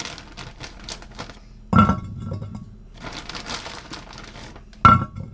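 Frozen tater tots dropped into a casserole dish: three loud knocks with a short ring, among many small clicks and clatters, with a plastic bag crinkling.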